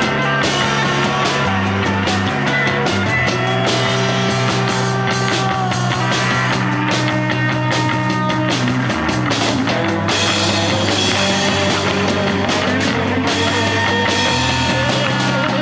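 Live rock band playing loud and steady through its stage amplifiers: electric guitars over a drum kit with frequent drum and cymbal hits.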